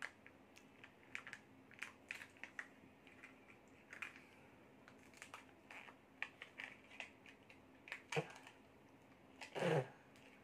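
Small plastic toy surprise egg being handled and pried open: light, irregular clicks and ticks of plastic against plastic, over a faint steady hum, with one brief louder sound near the end.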